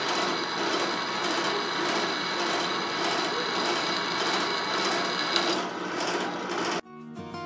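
Drill press running steadily, its bit cutting into the leaf-spring steel of the knife tang, a grinding noise with a steady high whine. The drilling stops shortly before the end.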